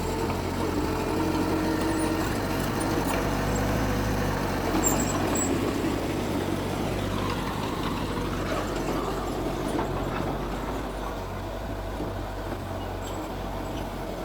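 Heavy diesel construction machinery running steadily with a low engine drone, a little louder in the first few seconds and easing slightly toward the end.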